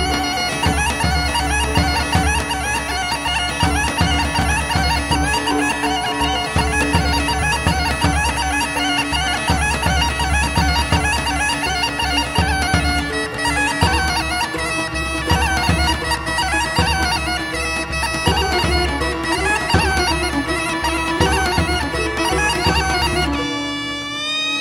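Thracian gaida (bagpipe) playing a fast, ornamented zonaradikos dance tune over its steady drone, with a drum beating underneath. About a second before the end the drum stops and the pipe's held tones slide upward in pitch.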